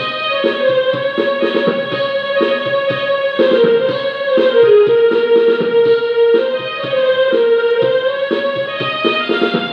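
Portable electronic keyboard played with both hands: a slow melody of held, sustained notes over quick repeated chords in the lower register.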